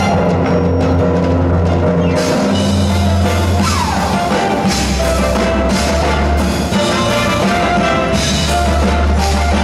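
Loud show choir band music with drum kit and a steady bass line. A sliding fall in pitch comes about four seconds in.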